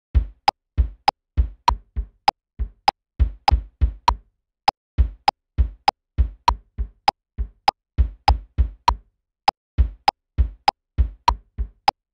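Pro Tools click track ticking steadily, a little under two clicks a second, with kick-drum hits from a virtual drum instrument played live over it in an uneven pattern of low thumps, being recorded as MIDI.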